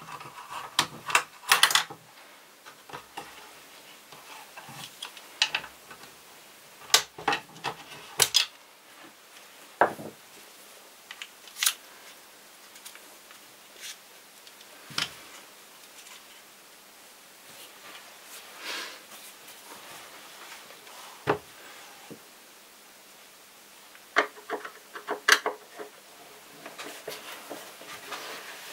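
Hard plastic parts of a Vorwerk VR100 robot vacuum clicking and knocking as they are handled and pulled apart, in scattered clusters of sharp clicks.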